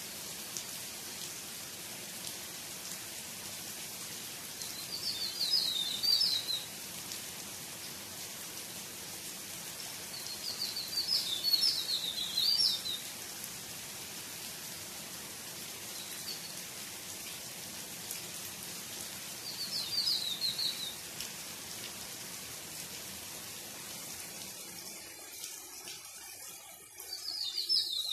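Steady rain hiss on garden foliage and ground, with a songbird singing short, high phrases of quick notes every five to eight seconds. The rain noise thins near the end.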